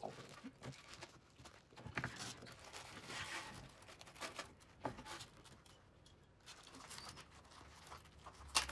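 Loose aluminium pop rivets and a plastic bag being handled: rustling with small metallic clicks and clinks, and one sharp click near the end.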